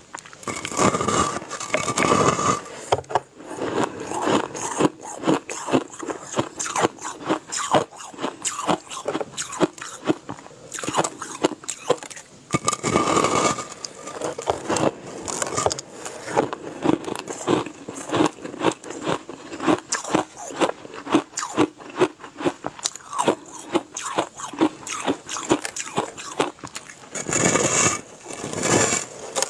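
A block of white frost ice being bitten and chewed in big chunks, a dense run of crisp crunches and crackles. Three louder, longer bites come about a second in, about halfway through and near the end.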